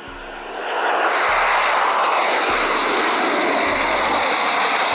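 MiG-15 jet fighter flying past low, its jet engine noise swelling loud about a second in and then holding. A whine falls in pitch as it goes by.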